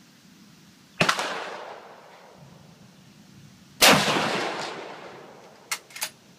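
Two shots from a Mosin-Nagant M44 carbine in 7.62×54R, about three seconds apart, each followed by a long echo. The second shot is the louder. A few short sharp clicks come near the end.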